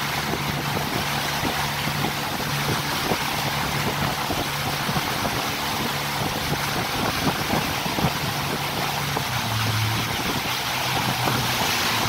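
Speedboat under way: its engine runs with a steady low hum under a constant rush of wind and water.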